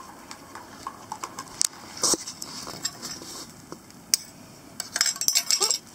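Light clinks and knocks of a cup and small stove gear being handled, scattered over a few seconds, with a quicker cluster of clicks near the end.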